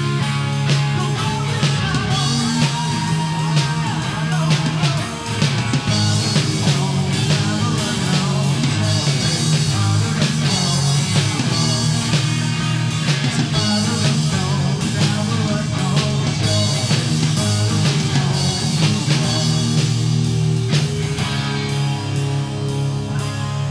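Rock song played by a band, with guitar and drum kit running throughout.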